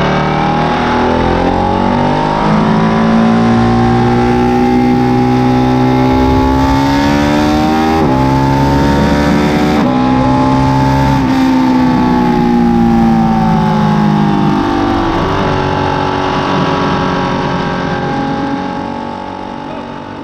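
Ducati 959 Panigale's Superquadro L-twin engine being revved: the revs climb over the first few seconds, are held high with dips and swells, then fall back to a lower steady note about three quarters of the way through and the sound fades near the end.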